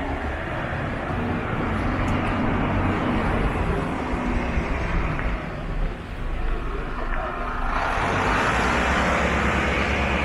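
City street traffic: a steady rumble of passing vehicles, with one vehicle's tyre hiss swelling near the end.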